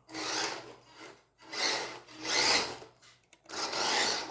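Electric drive motor and gears of a 1:18-scale 4WD RC truck whining in four short bursts as the throttle is blipped, the pitch rising and falling with each burst.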